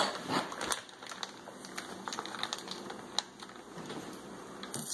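Irregular light ticks and crackles from raw bacon strips being laid on an electric griddle and starting to fry, with one sharper tick about three seconds in.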